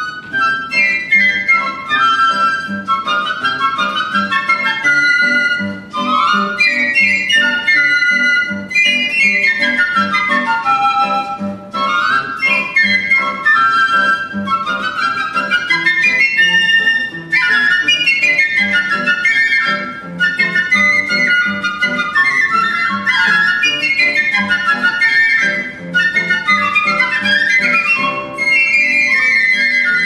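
Two piccolos playing fast runs of notes that sweep rapidly up and down, over a plucked classical guitar accompaniment.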